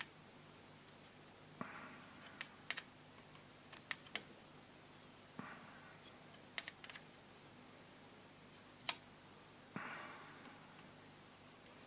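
Faint, scattered clicks and light taps from small hand tools working on a valve radio's chassis. Three short, soft hisses come a few seconds apart over a faint steady low hum.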